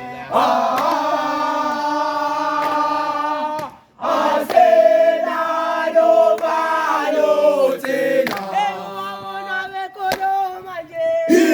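A group of voices singing a chant together in chorus, holding long sustained notes. There is a brief break about four seconds in, then the singing carries on.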